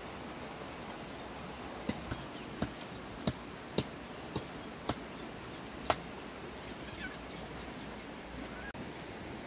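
Macaques moving on a bamboo-slat floor: a string of sharp knocks and taps, about eight in four seconds, over a steady outdoor background.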